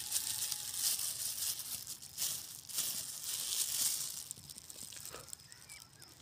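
Thin plastic bag crinkling and rustling in the hands, in loud irregular clumps over the first four seconds, then quieter.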